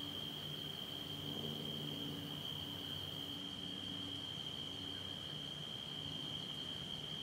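Night insect chorus of crickets, trilling in one steady, unbroken high tone.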